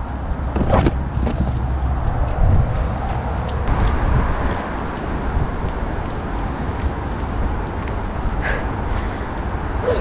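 Strong wind buffeting the microphone with a steady low rumble, while the fabric of a Clam ice-fishing tent rustles and flaps in it, with a few sharper flaps about a second in and near the end.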